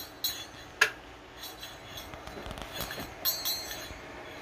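Light clinks and handling knocks of small hard objects, with one sharp click a little under a second in and a few fainter clicks near the three-second mark.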